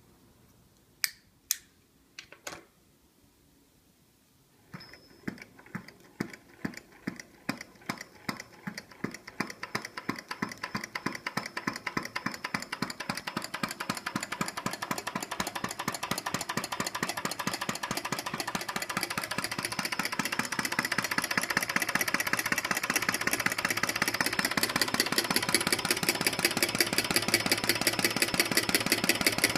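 Three sharp lighter clicks, then a model flame-eater (vacuum) engine starting up. Its clicking beat begins slowly, about two a second, and speeds up steadily into a fast, even clatter that grows louder as the engine gathers speed.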